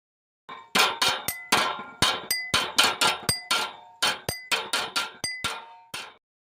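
A quick, rhythmic run of about twenty sharp metallic strikes, each with a short ring, stopping abruptly about six seconds in.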